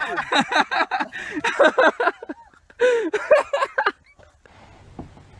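People laughing hard in quick, repeated bursts, a few voices overlapping, breaking off about four seconds in; after that only a faint, low background noise.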